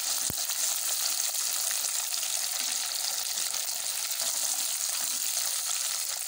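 Hot oil sizzling steadily in a deep-frying pan as a whole masala-coated fried fish is lifted out on a wire mesh strainer.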